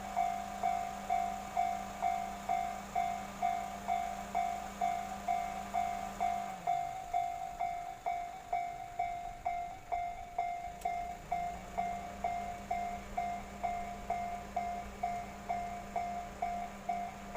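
Japanese railway level-crossing warning bell ringing steadily, about three strikes a second, with a train running through the crossing. A low hum under the bell falls away midway and returns.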